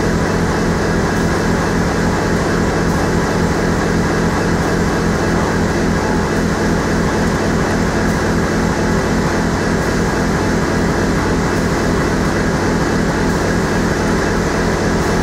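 Corrugated-box flexo folder gluer with its automatic pre-feeder running in production: a steady, unbroken machine din with a constant low hum.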